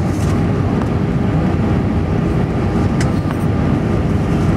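Jet airliner cabin noise on the approach to landing: steady engine and airflow noise heard from a window seat, deep and unchanging.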